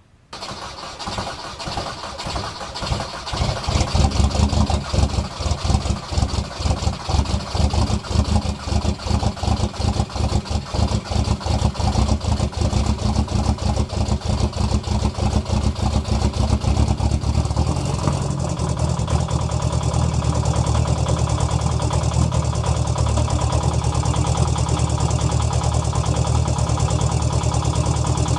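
BMW diesel engine starting from cold and running rough, firing unevenly for the first several seconds before settling into a steadier idle. This is the rough cold start typical of failing glow plugs.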